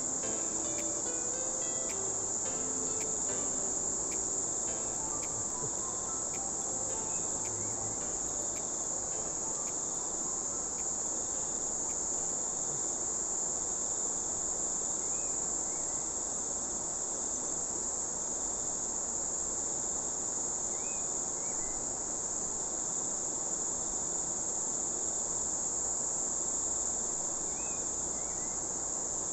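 Steady high-pitched insect chorus over the even rush of a swift river current.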